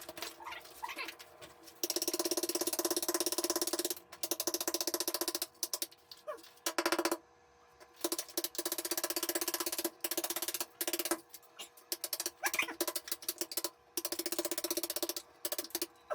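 A power tool run in repeated bursts of one to two seconds, with a rapid, even hammering pulse and short pauses between bursts.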